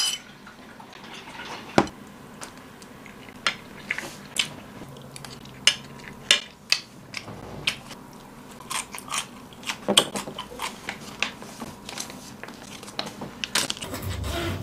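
Utensils clinking and scraping against ceramic bowls, with close-up chewing: a run of scattered sharp clicks and taps.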